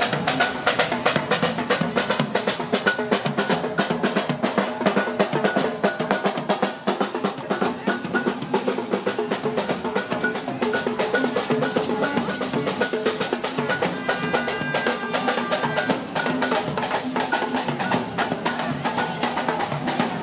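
Samba percussion band (bateria) playing a fast, steady drum groove, snare drums over bass drums and a drum kit.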